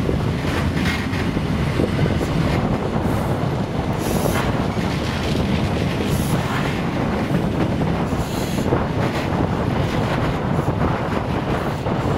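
Sleeper train running along the line: a steady rumble of wheels on rails with wind noise, and a few brief high-pitched squeals.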